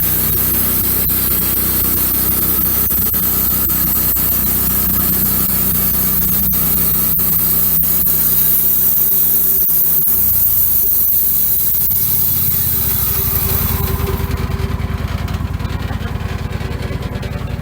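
Wood-Mizer LX150 bandsaw mill sawing a 5/4 board off an oak log: the engine running steadily under the loud hiss of the blade in the wood. About fourteen seconds in the hiss stops as the blade clears the cut, and the engine runs on with a lower, pulsing note.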